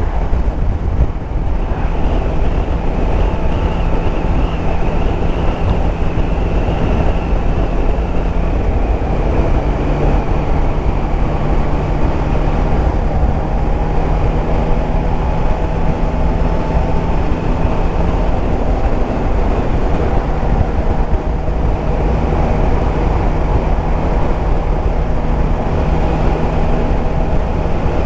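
Yamaha Tracer 9 GT's three-cylinder engine running at a steady cruise, mixed with road and wind noise on the camera microphone. The engine note drops slightly about nine seconds in.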